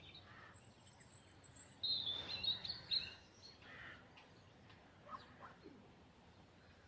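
Songbirds chirping faintly: a thin high whistled note, then a short burst of chirps about two seconds in.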